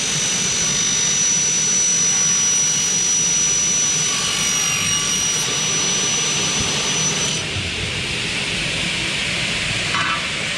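Two motor-driven circular saw blades of a double-head aluminium cutting saw running through a cut of a 2.2 mm Xingfa aluminium profile: a steady loud rushing noise with a high whine on top. The whine stops about seven seconds in while the rushing noise carries on.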